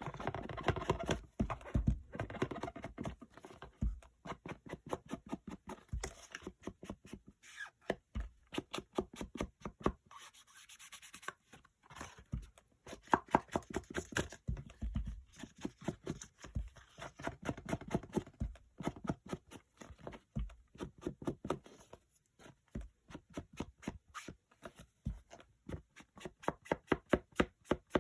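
Rapid, repeated scraping strokes along the edges of paper as the edges are distressed by hand, in runs of several strokes a second with short pauses between runs.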